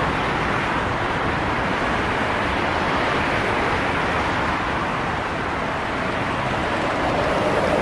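Continuous highway traffic: a steady wash of tyre and engine noise from many passing cars, swelling and easing a little, with a slight rise near the end.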